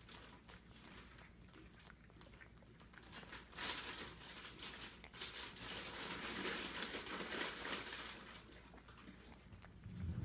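Cat eating from a plate: scattered crunching and licking clicks that thicken into a louder stretch of chewing for several seconds in the middle. A short low bump comes near the end.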